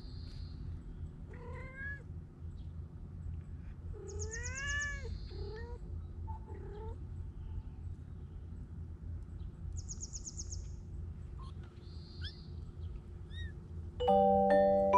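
Cats meowing: a handful of short calls that rise and fall in pitch, the strongest about four seconds in, with high chirping birdsong between them over a low steady rumble. Marimba-like music comes in loudly about a second before the end.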